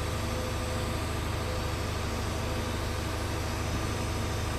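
TIG (argon) welding in progress: a steady low hum with a hiss over it from the burning arc and the welding machine.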